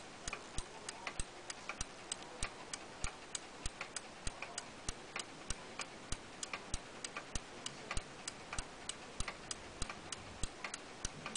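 Lux Bluebird pendulum wall clock ticking steadily while running, a quick even tick-tock of about three ticks a second.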